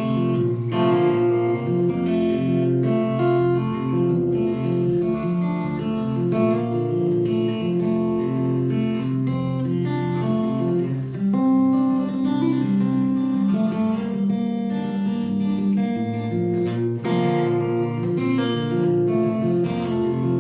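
Acoustic guitar playing an instrumental break in a song, strummed steadily with no singing.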